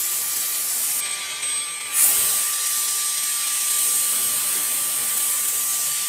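Air blowing from a cordless electric air duster and a compressed-air blow gun: a steady rush of air with a thin high whine. About a second in the hiss thins out, then about two seconds in a sharp blast of compressed air cuts back in and holds.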